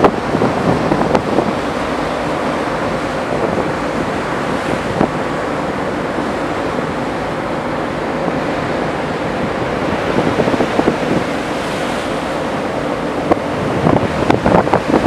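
Wind buffeting the microphone on a ferry's open deck over the steady rush of the sea and the ship's wake, with stronger gusts near the end.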